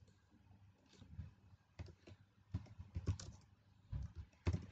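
Faint computer keyboard typing: separate keystrokes, starting about a second in and coming closer together in the second half.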